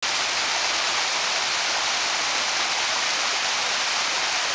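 Steady rush of flowing creek water: an even, unbroken hiss with little low rumble.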